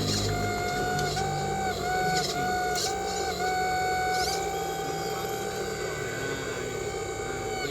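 Small electric motor of a radio-controlled model truck or excavator whining steadily, its pitch dipping and rising slightly in small steps as the load changes, with a few light clicks.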